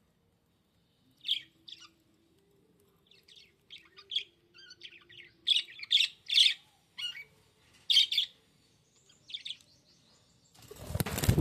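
Budgerigar giving a run of short, high chirps in quick bursts. Near the end comes a loud burst of rustling noise.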